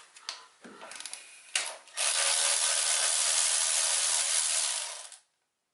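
A few light clicks and knocks of metal parts being handled in the engine bay, then an aerosol can spraying into the engine bay: a steady hiss for about three seconds that stops abruptly.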